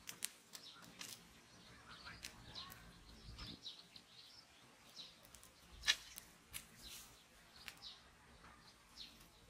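Small fire of dry leaves crackling, with scattered sharp pops and one loud pop about six seconds in. Birds chirp now and then.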